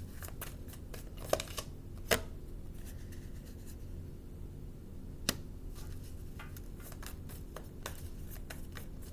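Tarot cards being shuffled and handled, then laid down on a wooden table: a run of soft flicks with a few sharper taps, about one and a half, two and five seconds in. A faint steady low hum runs underneath.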